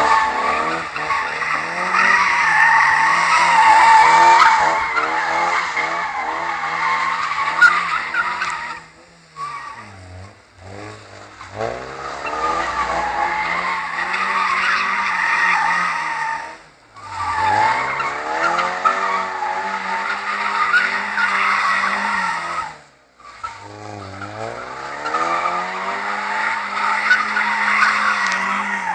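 Mazda MX-5's four-cylinder engine held at high revs while the rear tyres squeal continuously in a drift. Three times the revs drop and the squeal fades, then both pick up again.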